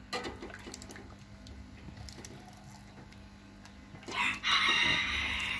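Herbal jamu liquid poured through a small plastic sieve into a plastic bowl: a steady splashing pour starts about four seconds in, after a few faint clicks.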